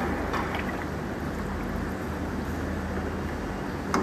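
Wooden spoon stirring stock and egg-white clarification mix in a stainless steel saucepan, the liquid swishing steadily over a low hum. A brief knock comes near the end.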